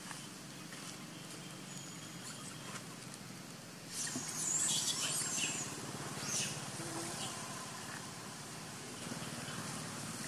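Outdoor ambience: a steady low hum, with a cluster of high-pitched chirping calls starting about four seconds in and lasting a couple of seconds, then one more brief chirp.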